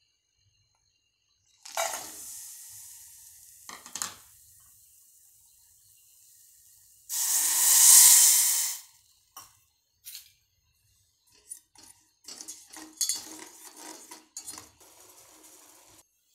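Pieces of jaggery clatter into an empty stainless-steel pot about two seconds in. Water is poured in over them from about seven to nine seconds in, a loud rushing splash and the loudest sound here. Scattered clinks and scrapes against the steel pot follow.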